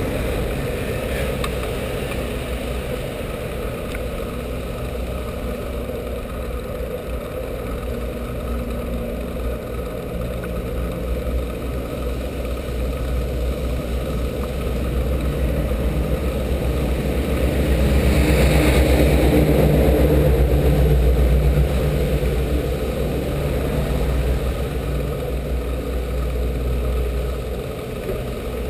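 Wind rumbling on a bicycle-mounted action camera's microphone while riding, mixed with road and traffic noise. It grows louder for a few seconds about two-thirds of the way through.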